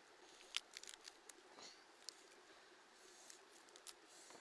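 Faint scattered clicks and crackles of hands tearing cooked chicken apart over a clay plate, with one sharper click about half a second in.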